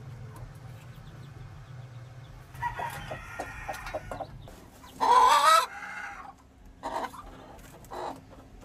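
Chickens clucking and calling in short calls, with the loudest, a short wavering call, about five seconds in.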